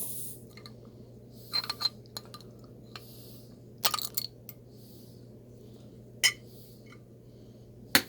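Steel snowflake multi-tool's bottle opener clinking and tapping against a glass bottle, in a few short clusters of sharp clicks.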